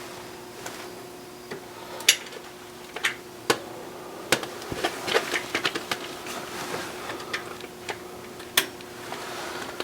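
Hand tools and a steel bolt being worked on an engine's flex plate: irregular metallic clicks and clinks, with a few sharper clanks about two, three and a half and eight and a half seconds in, over a faint steady hum.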